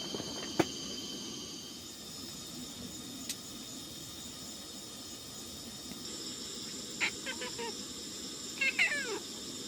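A pot lid is set down with one sharp clack about half a second in, over the steady hiss of a cooking pot on the stove. Near the end a cat meows, a short chirp and then a longer meow falling in pitch.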